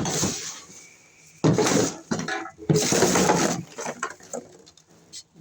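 Hand tools and electrical wire being handled, with metal clinking and rustling in three short bursts.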